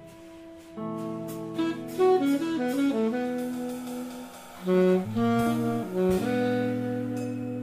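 Live jazz trio playing: alto saxophone with guitar and drums, moving through a quick run of notes and held chords.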